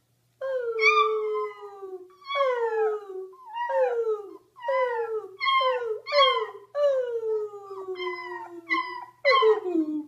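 A puppy howling in a run of about nine high-pitched cries, each starting high and sliding down in pitch, two of them drawn out longer than the rest.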